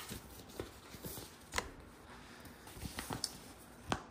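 A folded paper sticker sheet being handled and opened out: a few short paper crinkles and rustles, the sharpest about one and a half seconds in and just before the end.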